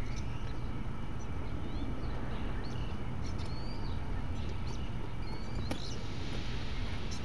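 Small birds chirping in short, scattered calls that bend up and down in pitch, over a steady low rumble, with a single click near the end.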